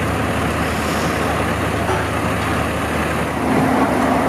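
A heavy vehicle's engine idling, a steady low hum, with street traffic behind it.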